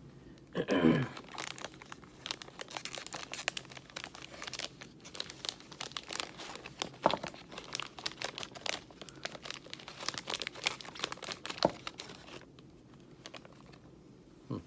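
Plastic wrapper of a Nature Valley Granola Cups snack pack crinkling and tearing as it is opened: a short falling rasp about a second in, then about ten seconds of dense crackling with a few louder snaps, stopping about twelve seconds in.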